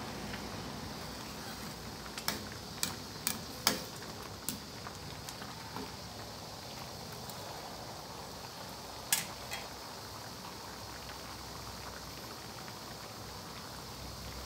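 Bananas boiling in sugared liquid in a stainless-steel wok, bubbling steadily. A metal ladle stirs and clinks against the pan about five times between two and five seconds in, and once more about nine seconds in.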